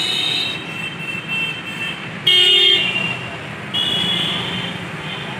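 Road traffic going past, with vehicle horns sounding in turn over a steady rumble; the loudest horn is a short blast about halfway through.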